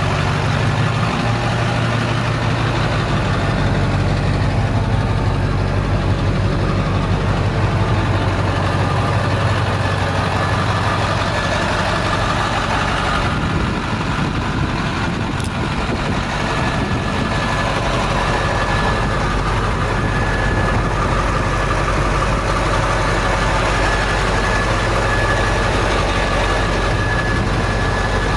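International 4700 dump truck's diesel engine idling steadily.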